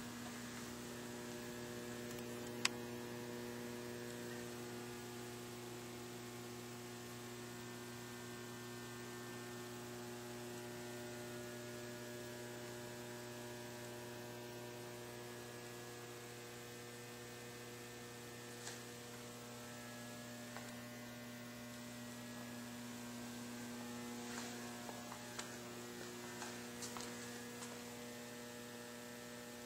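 Steady electrical mains hum with a stack of higher overtones, with one sharp click about three seconds in and a few faint ticks near the end.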